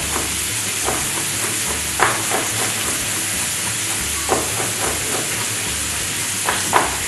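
Ground meat sizzling in a frying pan on a gas hob, a steady hiss, with a few sharp knocks of a knife chopping on a wooden cutting board.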